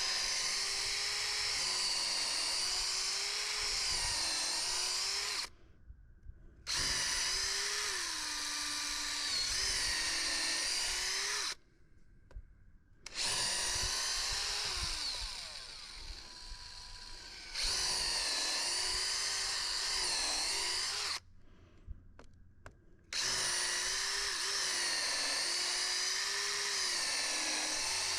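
Electric power drill running under load in four long runs separated by short pauses, its whine wavering and dipping in pitch as it bites into the wood.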